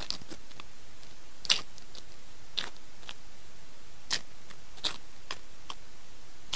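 Close-miked chewing of a mouthful of rice and sardine in sambal: irregular wet mouth clicks and smacks, several a second, with a few louder ones about a second and a half in and around four and five seconds, over a steady hiss.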